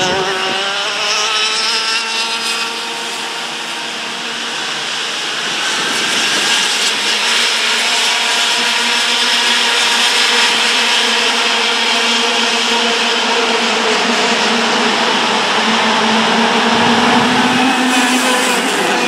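Racing kart engines buzzing at high revs as the karts pass, several engines heard together. The pitch drops at the start, holds nearly level through the middle, and climbs again near the end as they accelerate.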